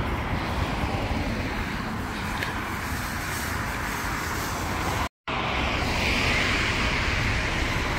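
Outdoor city street ambience: a steady rush of traffic and general street noise. It cuts out to silence for a moment about five seconds in, then resumes a little louder and brighter.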